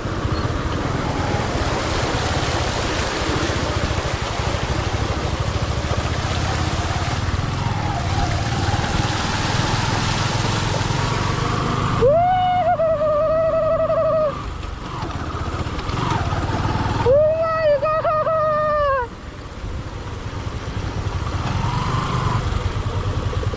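A motorbike running while riding up a rough, muddy track, its engine rumble mixed with wind and road noise. Two long, high-pitched hooting calls come about halfway through and again a few seconds later.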